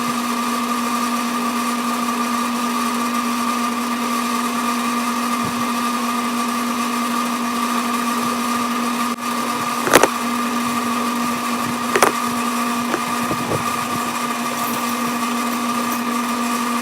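Sidney lathe running steadily with an even motor whine as it winds resistance wire into a coil on a rod. Two sharp clicks about ten seconds in and again two seconds later.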